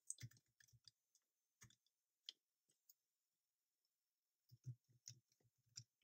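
Faint key clicks from typing on a Jelly Comb multi-device wireless keyboard with low-profile keys: a quick run of keystrokes in the first second, a few single presses, a pause, then another run about four and a half seconds in, as the keys are tried out.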